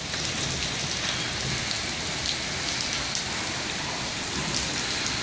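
Heavy rain pouring steadily onto a wet street, sidewalk and lawn, an even hiss.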